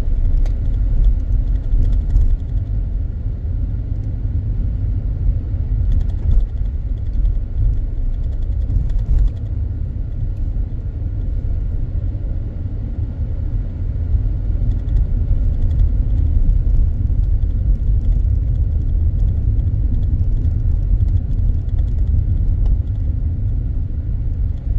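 Steady low rumble of a car driving slowly, its engine and tyres heard from inside the cabin.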